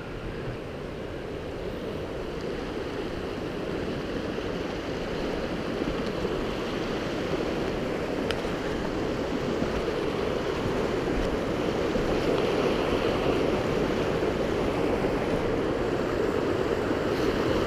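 Small mountain creek rushing over rocks and little rapids, a steady rush of water that grows gradually louder.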